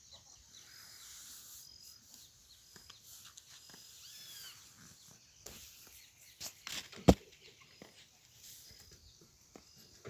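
Quiet rural outdoor ambience with faint bird chirps and scattered small clicks, and one sharp knock about seven seconds in.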